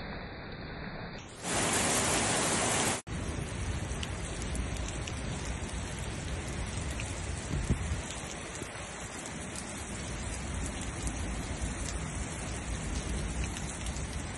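Heavy rain falling steadily, with scattered sharp drop hits. About a second in, a much louder rush of noise lasts under two seconds and cuts off abruptly.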